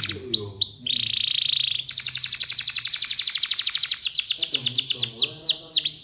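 Domestic canary singing a long song: a few quick downward-sweeping whistles, a short buzzy note, then a long, very rapid rolling trill of some two seconds, ending in a run of slower downward-sweeping notes.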